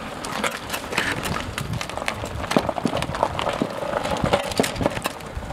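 Irregular knocks, clicks and rattles from a homemade steel-tube go-kart as it is rolled on its knobbly tyres over pavement and a kerb.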